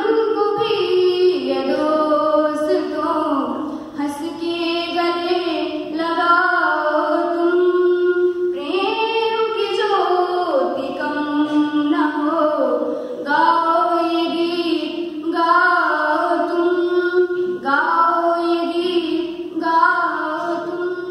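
Two girls singing a Hindi song together without instruments, in sung phrases of a few seconds each with short breaths between.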